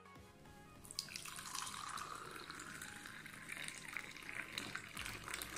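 Hot, milky masala tea poured in a thin stream into a drinking glass, starting about a second in; the splashing rises steadily in pitch as the glass fills and the tea froths.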